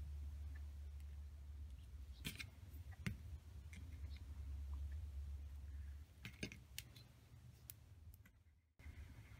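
Small craft tools handled on a wooden tabletop: a handful of light, sharp clicks and taps as a wooden toothpick is laid down and metal tweezers pick up a tiny pearl. Under them a faint low hum cuts out about six seconds in.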